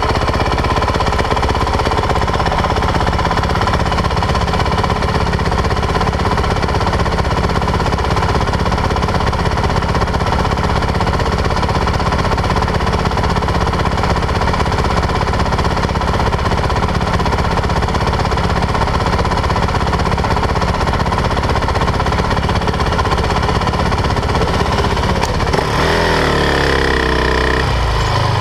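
Motorcycle engine idling steadily with a fast, even pulse, heard up close from the bike itself. About three seconds before the end it is revved and accelerates away, its pitch rising and falling through the revs.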